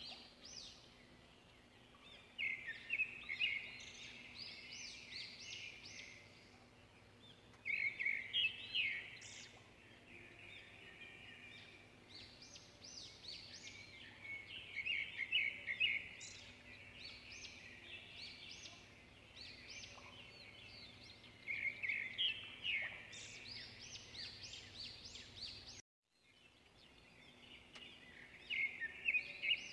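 Small birds chirping in repeated bursts of quick, high chirps every few seconds, over a faint steady hum.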